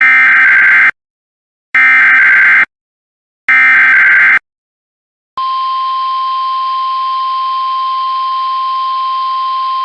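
Emergency Alert System SAME header: three bursts of digital data tones, each about a second long with short silent gaps. About five seconds in, the steady 1050 Hz NOAA Weather Radio warning alarm tone starts, opening a National Weather Service Required Weekly Test.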